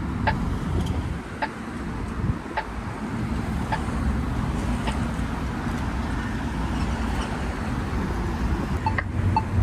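Polara EN4s crosswalk push button ticking about once a second, a short sharp tick with a clear pitch: the countdown ticking after the walk message. Steady road-traffic rumble runs underneath.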